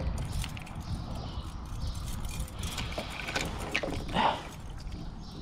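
Small clicks and rattles of handling noise over a steady low rumble, with one short, brighter sound about four seconds in.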